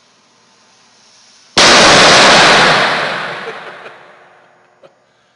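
A firecracker exploding once, about one and a half seconds in: a single very loud bang that overloads the recording, followed by a long echo off the concrete walls that dies away over about two seconds.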